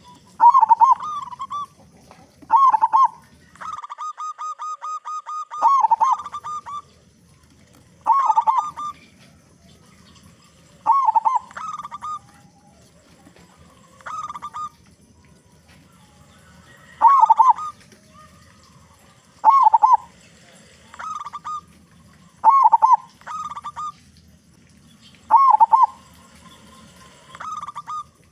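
Zebra dove (perkutut) song: a short cooing phrase repeated every two to three seconds, with one longer run of fast, evenly repeated notes about four seconds in.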